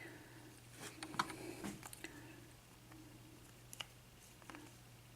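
Small metallic clicks and taps of a padlock being taken apart by hand, as the plug is worked out of the lock body: a quick flurry about a second in, then a few single clicks. A steady low hum runs underneath.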